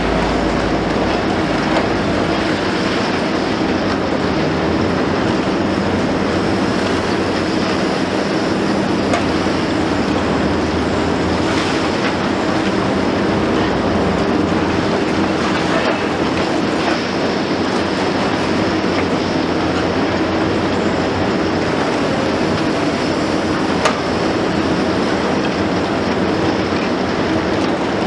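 Liebherr 954 long-front demolition excavator working, its six-cylinder 10.5-litre diesel running steadily under hydraulic load, with the grinding and crunching of concrete being torn down. A couple of sharp cracks stand out from the steady noise.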